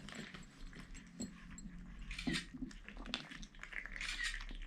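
Young kittens making brief, faint high calls, about two seconds in and again near four seconds in.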